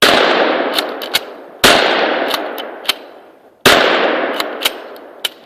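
Remington 870 pump-action shotgun fired three times, about two seconds apart, each blast trailing off in a long fading echo. Short sharp clicks between the shots, from the pump action being worked.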